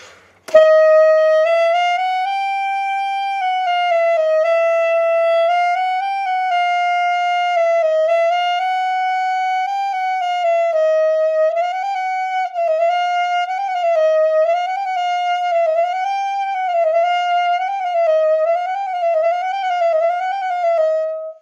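Alto saxophone playing a palm-key exercise in the high register: stepwise chromatic notes between written high C and E, going up and down without changing the note order. It starts slowly on a held note, the back-and-forth figures get quicker from about halfway, and it ends on a held low note.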